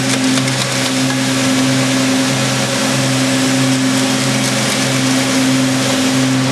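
Circular knitting machine running at speed: a loud, steady mechanical whirr and rattle over a constant low hum.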